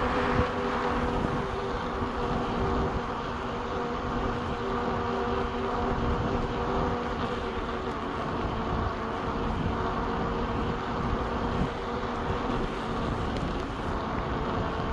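Air-raid sirens wailing on several steady tones over a low continuous rumble; the siren tones fade out a couple of seconds before the end.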